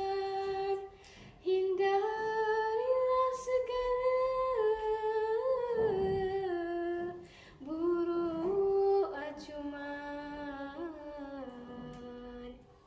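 A teenage girl chanting a Malay syair unaccompanied, drawing each syllable out into long held notes that step up and down in pitch, with short breaks for breath about a second in and again around the middle.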